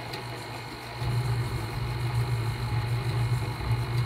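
Stand mixer's motor running steadily with a low hum as the beater mixes sugar and melted butter in a steel bowl; the hum gets noticeably louder about a second in and holds.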